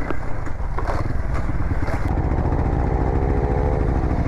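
Motorcycle engine running, with a few sharp knocks and rattles in the first two seconds. From about halfway through, the engine note rises a little and then falls away near the end.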